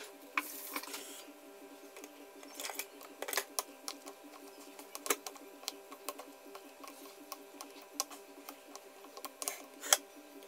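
Wooden chopsticks clicking and scraping against ceramic bowls as instant noodles are tossed with their sauce: irregular taps, with the sharpest knock near the end. A short rustle comes about half a second in, over a faint steady hum.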